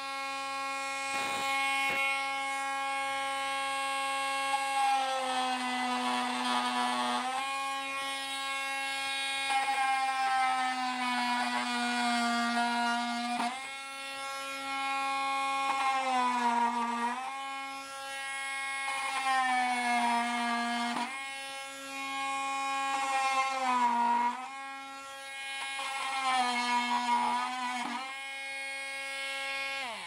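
Parkside 20V cordless oscillating multitool running with a steady buzzing whine. Its pitch dips several times as the blade is pushed into a wooden board and bogs under load, then recovers as the load comes off.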